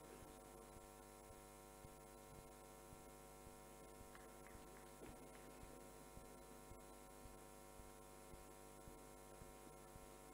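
Near silence: a faint steady electrical hum, with a soft low pulse about twice a second.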